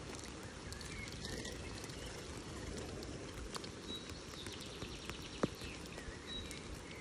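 Soft, steady background hiss with a few faint, short bird chirps, and one sharp click a little past five seconds in.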